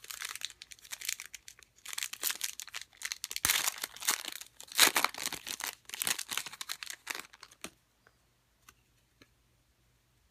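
Plastic wrapper of a trading card pack being torn open and crinkled as the cards are pulled out. The crinkling comes in irregular bursts and stops about eight seconds in, leaving only a few faint ticks of cards being handled.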